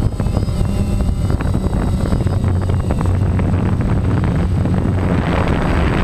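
DJI Phantom quadcopter's motors and propellers running steadily in flight, heard from the GoPro on the drone itself: a loud, even drone with wind buffeting the microphone and a faint high motor whine above it.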